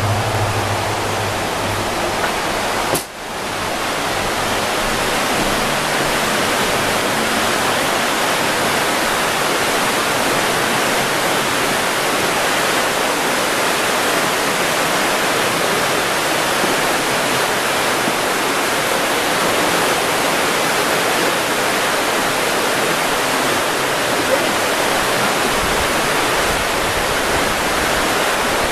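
Steady rushing of a shallow river running over rocky riffles. A low hum is heard for the first few seconds and stops abruptly about three seconds in.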